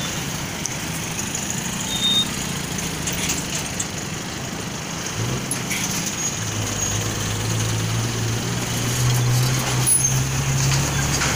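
Busy road traffic heard from a moving vehicle: a steady mix of engines and tyre noise. About halfway through, a heavy truck engine's low drone grows louder as the truck runs close alongside.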